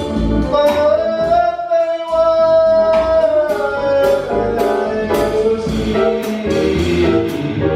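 Jazz vocal with instrumental accompaniment: a slow ballad line in which the singer holds one long note for about three and a half seconds, then moves on through shorter notes.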